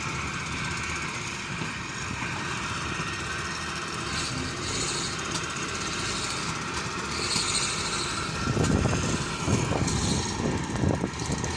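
Engine of heavy construction machinery running steadily, with rougher, louder surges in the last few seconds.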